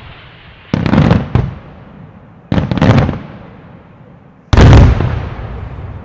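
Aerial fireworks shells bursting: three heavy booms about two seconds apart, each trailing off in a rumbling echo. The first has a couple of quick follow-up reports, and the last is the loudest.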